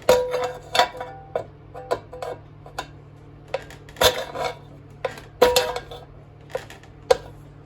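A pry bar clanking against an electric grill and its heating element while prying the element out: a series of sharp metallic clinks and knocks, some with a brief ring, about six spread through the stretch.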